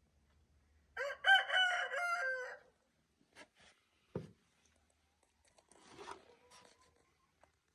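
A rooster crowing once, a single call of about a second and a half. A short thump follows a little later.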